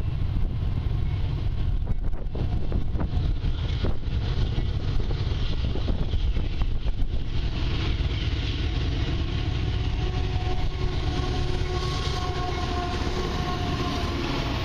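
Canadian Pacific diesel freight locomotives approaching and passing close by: a deep, steady engine rumble with wind on the microphone. Droning engine tones join about halfway through as the units draw near.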